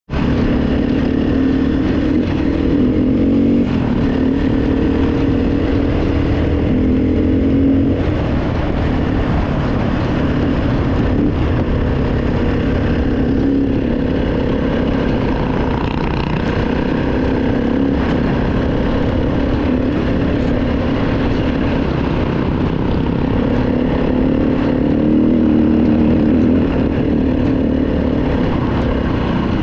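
Four-stroke single-cylinder dirt bike engine running under way, its note rising and easing as the throttle opens and closes, with wind buffeting the microphone.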